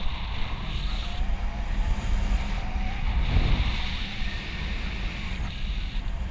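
Wind rushing over the microphone of a camera on a paraglider in flight: a steady, low, gusting roar of airflow.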